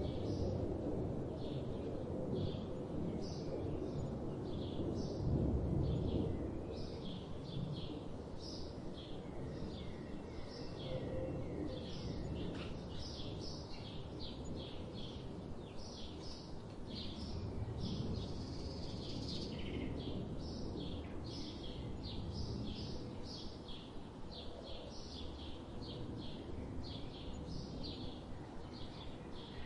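Small birds chirping, with many short high notes in quick succession throughout, over a steady low rumble of background noise that eases after the first few seconds.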